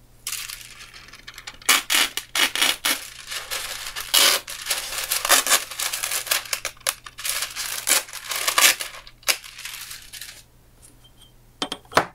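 Sheet of printed paper rustling and crinkling as it is handled and lifted away, with many sharp crackles, dying down after about ten seconds; two light knocks near the end.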